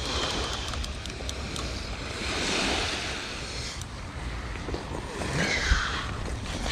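Surf washing on the beach with wind on the microphone, the wash swelling for a couple of seconds about two seconds in.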